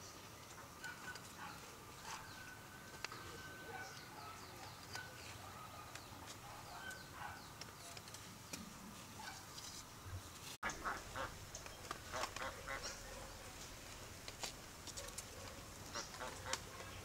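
Faint calls of farm ducks: repeated short honking calls, with a few light clicks between them. About ten seconds in the calls come as a quicker run.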